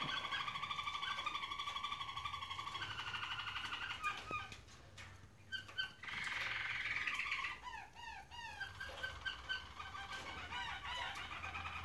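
Roller canaries singing long, fast rolling trills, pausing briefly about five seconds in, then a run of short falling notes around eight seconds before the rolling resumes.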